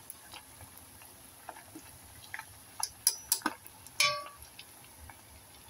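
Chicken pieces frying in hot oil in a pot: a steady sizzle with scattered sharp crackles and pops, the loudest about three and four seconds in.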